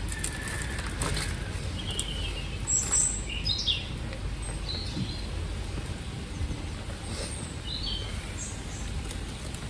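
Small birds chirping, a scatter of short calls, over a steady low background rumble outdoors.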